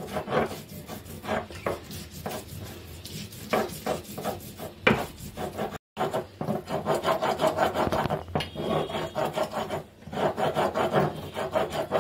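Stone roller (batta) rasping back and forth over a flat grinding stone (sil) in quick repeated strokes, grinding soaked chana dal into a paste. The sound breaks off for an instant a little before halfway.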